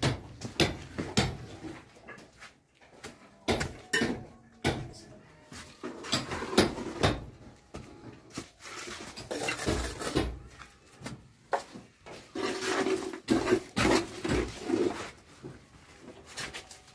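Irregular knocks, clicks and clatter, with a few short noisy stretches in between.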